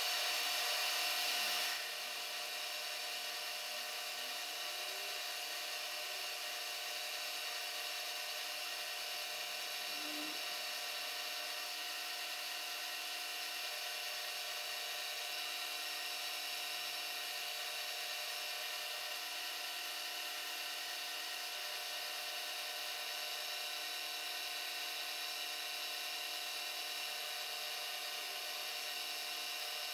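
Vertical milling machine running with its end mill cutting a slot in a small metal casting: a steady whine of several held tones over a hiss of cutting. It is a little louder for the first two seconds, then holds steady.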